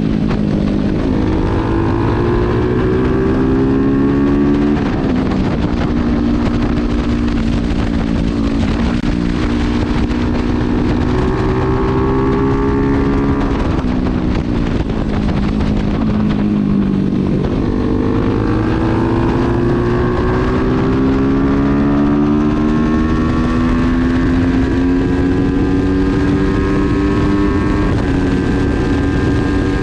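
A 275cc motorcycle engine with a handmade exhaust, ridden under load. The revs climb, drop sharply at a gear change about five seconds in, and climb again. They fall away for a few seconds around the middle as the throttle closes, then rise steadily once more.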